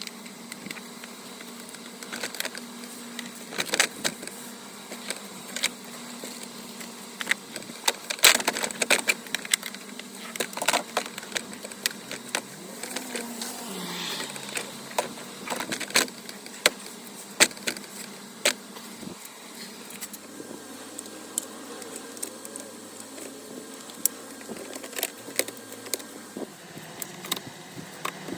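Irregular clicks, taps and light clatter of hand work on a car door's lock mechanism and its plastic clips and rods, over a steady low hum.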